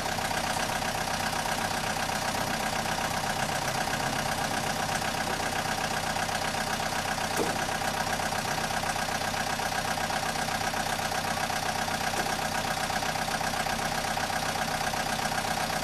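A steady engine idling sound, constant in pitch and level throughout.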